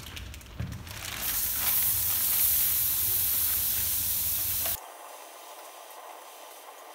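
Meat sizzling on a hot grill grate over wood coals: a loud, steady hiss that cuts off abruptly about five seconds in, leaving a fainter sizzle.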